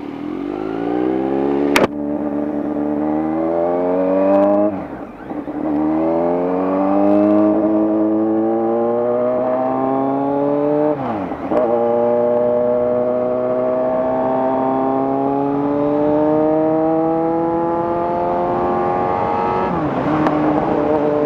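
2018 Kawasaki Z900's inline-four through an SC Project full-system exhaust, pulling hard through the gears. The engine note climbs steadily in each gear and dips briefly at upshifts about four and a half, eleven and twenty seconds in. A sharp click comes about two seconds in.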